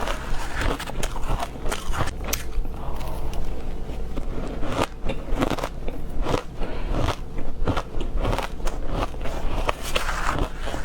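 Teeth biting into frozen green matcha ice, close to the microphone: a dense run of sharp, crisp, powdery crunches, several a second.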